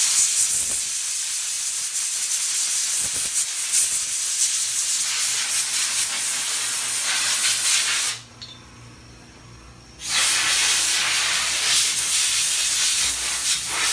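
Compressed-air blow gun blasting a steady hiss of air onto a laryngoscope handle's blade fitting to dry it. It comes in two long blasts, the first about eight seconds long, then a pause of about two seconds, then a second blast.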